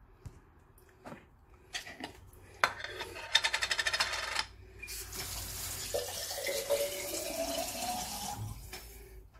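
Water running into a vessel for about four seconds from the middle on, its pitch rising as the vessel fills. Before it come a few clicks and knocks and a short fast rattle.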